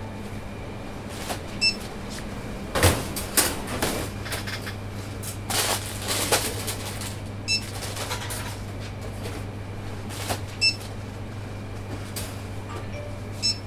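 Grocery packets being handled and set down at a shop checkout: scattered rustles and knocks over a steady low electrical hum, with a few short high beeps.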